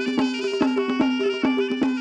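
Mazandarani folk music: a wind instrument playing a sustained, reedy melody over a steady drum rhythm of a few strokes a second.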